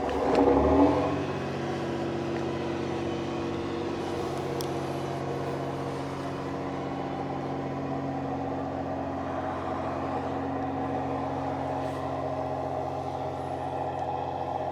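Diesel railcar's engine heard from inside the carriage, swelling loudly in the first second and then running with a steady, even hum.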